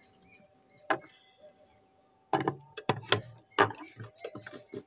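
Sewing machine mechanism clicking as its handwheel is turned by hand to bring the bobbin thread up through the needle plate, along with small knocks of hands handling the thread. One sharp click about a second in, then a run of quicker clicks from a little past two seconds until near the end.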